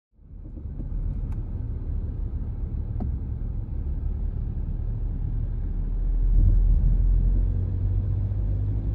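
Car driving, heard from inside the cabin: a steady low rumble of road and engine noise that swells a little about six seconds in.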